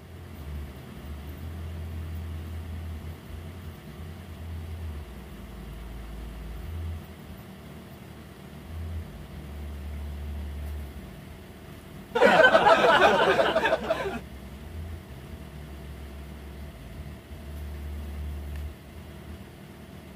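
Snow being brushed and scraped off a car, over a low rumble that comes and goes. About twelve seconds in there is a loud burst of brushing or scraping that lasts about two seconds.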